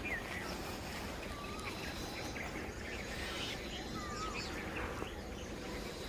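Birds calling in the trees: a short swooping whistle sounds twice, with scattered high chirps and a brief sharper note right at the start, over a steady outdoor hiss.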